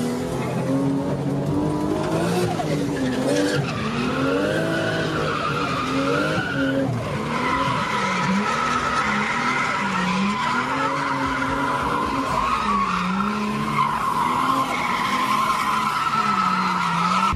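Car drifting around a track, heard from inside the cabin: the engine revs rise and fall again and again as the driver works the throttle, over a continuous high tyre squeal that grows louder and steadier about halfway through as the car slides sideways.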